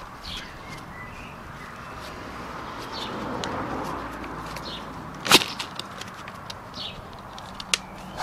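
Plastic webbed brush segments on a grass-collector brush shaft clicking and rattling as the shaft is handled and turned, with one sharp click about five seconds in. A rushing background noise swells gently near the middle.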